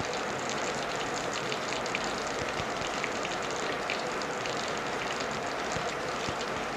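Mustard and cumin seeds spluttering in hot oil in a frying pan, a scatter of small crackles and pops, over the steady hiss of heavy rain.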